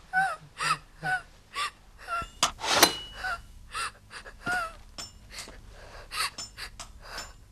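A woman's ragged gasping sobs, short breaths about twice a second, a few catching into a whimper. A sharp knock with a brief ring comes about three seconds in.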